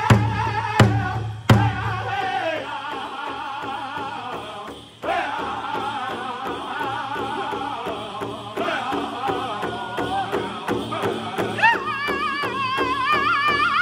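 Powwow drum group singing a chicken dance song in unison around a large shared drum. Heavy, evenly spaced drum strokes open it, then quicker, lighter beats run under the voices, with a short dip before the singing picks up again. Higher voices come in near the end.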